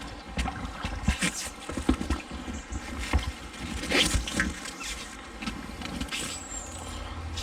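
Shallow river water splashing and sloshing around a wading person's legs and a magnet pole dragged along the riverbed, with irregular short splashes and knocks.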